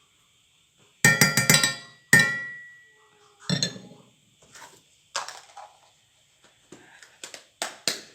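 Small spoon clinking against a glass: a quick run of taps about a second in, then a single stroke that rings briefly, followed by a few lighter clinks and knocks.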